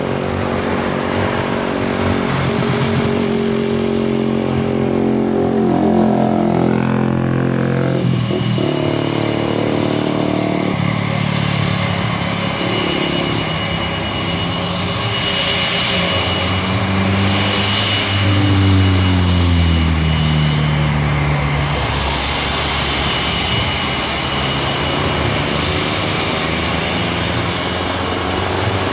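Airbus A320 airliner's twin jet engines running at taxi power: a steady turbine whine with a thin high tone over a rumble. About two-thirds of the way through, the lower engine tones slide down in pitch.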